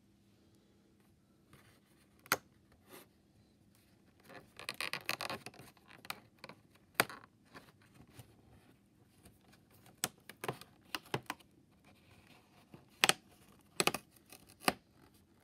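Fingers picking and tearing open the perforated cardboard door of a Hatchimals advent calendar: scratching and rubbing on the card, with a longer tearing rustle about five seconds in and sharp snaps of the card giving way, several of them near the end.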